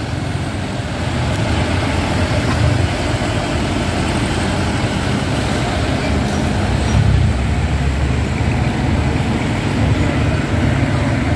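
Road traffic with trucks and motorbikes driving past: steady engine and tyre noise, strongest at the low end.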